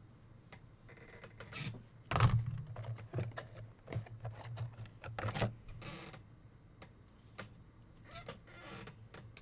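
Trading cards and their packaging being handled on a table: scattered light taps, clicks and rustles, with a louder knock about two seconds in.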